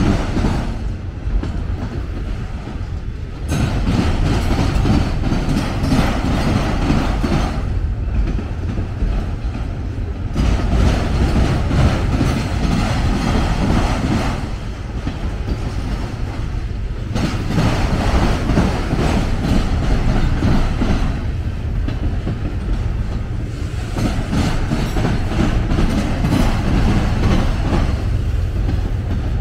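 CSX freight train of autorack cars rolling past at close range: a steady rumble of steel wheels on rail with clickety-clack over the joints, swelling and easing every few seconds as the cars go by.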